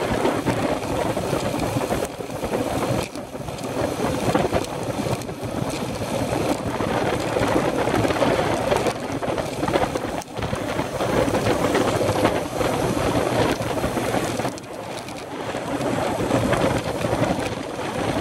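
Wind and road noise from a road bike ridden at speed in a group, rushing over a handlebar-mounted camera's microphone. The noise swells and dips unevenly, with brief lulls.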